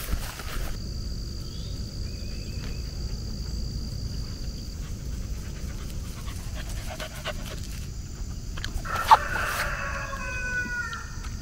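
A dog whining in a few short falling notes near the end, just after one sharp click. A steady low rumble runs under it.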